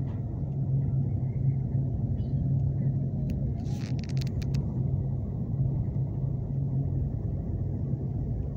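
Steady low rumble and drone of a moving vehicle heard from inside, with a short run of sharp clicks or rattles about three and a half to four and a half seconds in.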